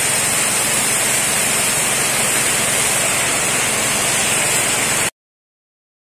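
Sunsine high-pressure washer spraying water, a steady loud hiss; it cuts off suddenly about five seconds in.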